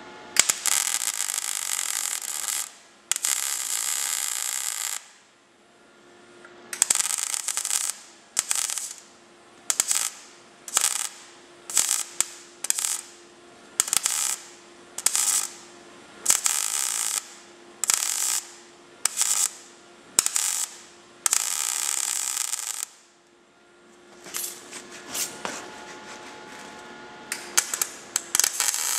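MIG welder arc crackling in bursts as short stitch welds are laid on thin car-body sheet steel: two runs of about two seconds at the start, then a quick series of short bursts with pauses between, another longer run later and rapid short tacks near the end. A faint steady hum sits between the bursts. The weld spatters on the top seam, where paint left under it was burning and dispersing the shielding gas.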